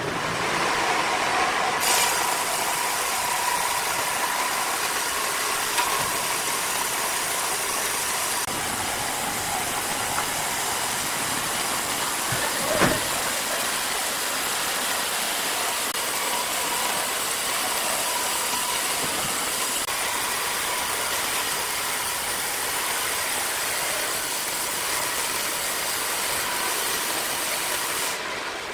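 Large band sawmill running steadily, a loud even rushing noise with a faint steady whine. A single sharp knock about thirteen seconds in.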